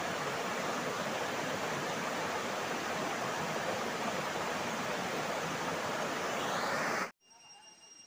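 Swollen, muddy river rushing over rocks in rapids: a steady, even rush of water. It cuts off suddenly about seven seconds in, leaving near silence with a faint high steady tone.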